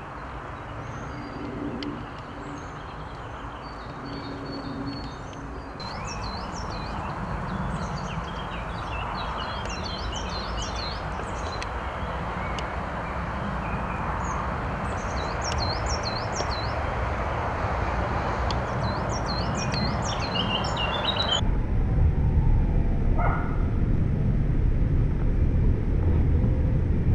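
Breeze blowing through trees and across the microphone, with songbirds singing repeated quick chirping phrases. About two-thirds of the way through the birdsong drops away and a louder low wind rumble on the microphone takes over.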